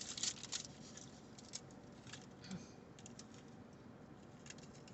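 Quiet eating sounds: chewing and mouth clicks with light crackles of food or wrapper. A quick cluster comes right at the start, then isolated soft clicks every second or so.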